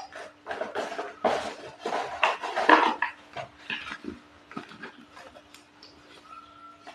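Slate pencils being bitten and chewed: a rapid run of loud crunches for the first three seconds, then sparser, fainter chewing crunches. A faint steady hum runs underneath.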